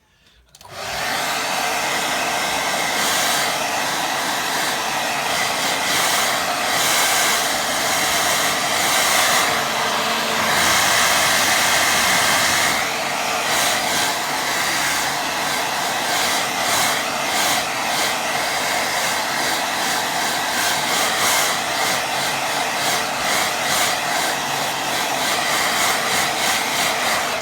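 Hair dryer running steadily on a watercolour painting to dry the wet paint; it switches on about half a second in and cuts off suddenly at the end.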